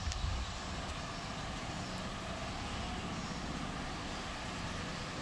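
Cosmos 16 WFGR wall fan running steadily: an even rush of air from the spinning blades.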